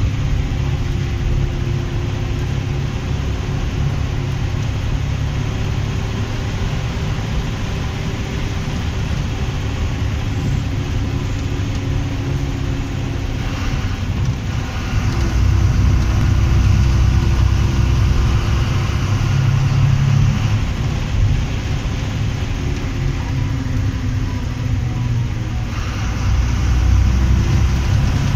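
KSRTC bus's diesel engine running on the move, with road and tyre noise, heard from inside the bus. The engine note drifts up and down and gets louder about halfway through and again near the end.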